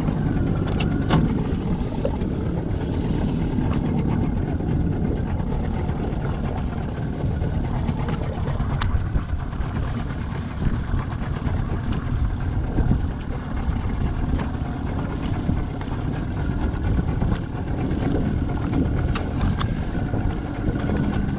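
Steady low rumble of a boat out on the water, with a faint whine and a few light clicks.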